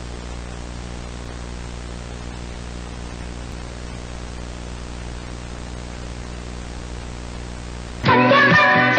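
Steady hiss of static with a low mains hum under it. Music cuts in suddenly about eight seconds in.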